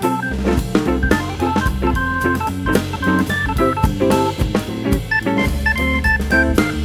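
Background music: an organ playing a lively melody over a drum kit's steady beat.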